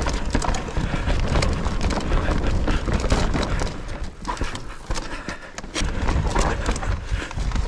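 Nukeproof Mega 290 enduro mountain bike descending a rough, rooty dirt trail: a constant clatter of tyre and frame knocks and chain rattle over a low rumble, easing for a moment about halfway through.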